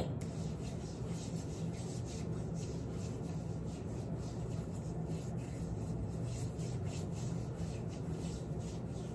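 Hands rubbing moisturizer into the bare skin of the arms: a run of short, soft brushing strokes that goes on steadily over a low background hum.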